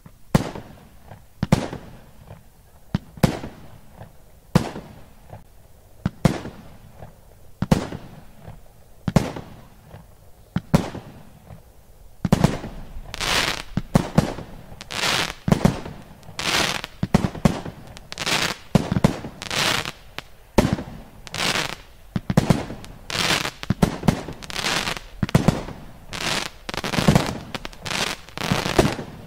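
A 48-shot, 20 mm firework cake (Lesli Essentials 'Cobra's Fang') firing. It sends up single shots and bursts spaced about a second apart, then after about twelve seconds a faster, louder run of shots and bursts.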